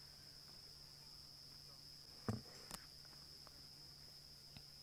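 Faint, steady high-pitched insect trill, typical of crickets in the bush at dusk, over a faint low hum. A brief low thump about two seconds in is followed by a click.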